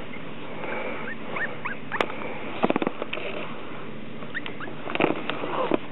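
Ruby Cavalier King Charles Spaniel puppies giving short, high squeaks in small clusters, with a few sharp clicks and rustles between them over a steady background hiss.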